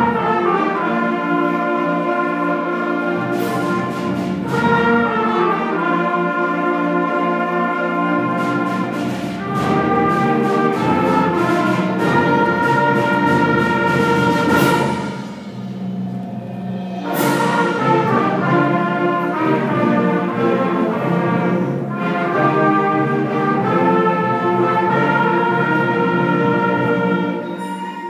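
Cadet (beginner) school concert band playing, brass and woodwinds holding full sustained chords. About halfway through the music drops away briefly before the whole band comes back in, and it starts to fade near the end.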